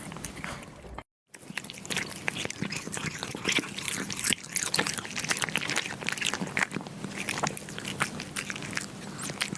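Kittens eating meat, a dense run of quick, irregular chewing and biting clicks, with a brief dead gap about a second in.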